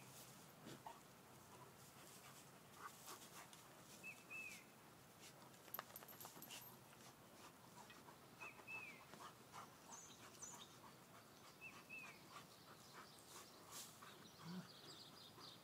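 Faint scratching and rustling of dogs digging with their paws in loose garden soil and dry leaves. A bird gives a short, falling call about every four seconds.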